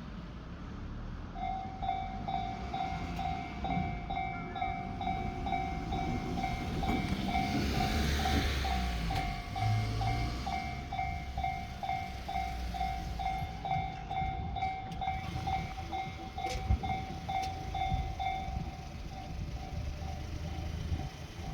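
Japanese railway level crossing alarm ringing: a repeated electronic bell tone, a little over two strokes a second, starting about a second in and stopping near the end. A train passes midway, heard as a rumble under the bell.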